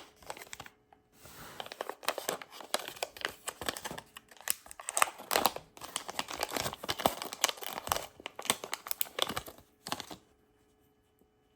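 Plastic blind-bag pack being crinkled and torn open by hand, with dense crackling and rustling that stops about ten seconds in.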